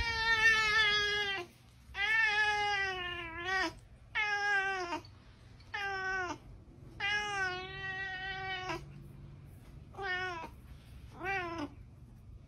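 Orange tabby cat meowing repeatedly, seven meows in all: the first, second and fifth long and drawn out, the others short.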